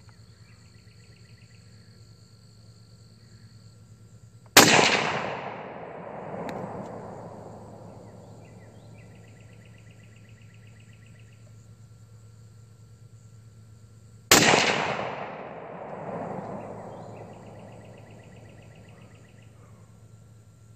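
Two shots from an SKS semi-automatic rifle in 7.62×39mm, about ten seconds apart. Each shot has a long rolling echo that swells again about two seconds after it before fading out.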